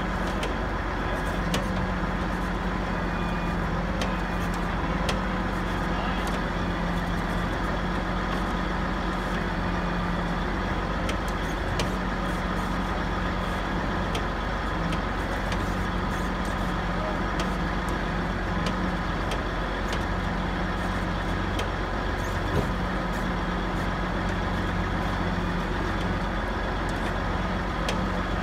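Heavy diesel truck engine running at a steady speed, with faint clicks and knocks now and then.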